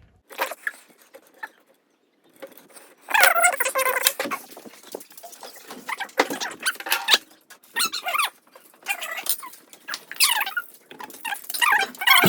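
Repeated high-pitched squeaking in short bursts, each lasting up to about a second, the pitch bending within each squeak.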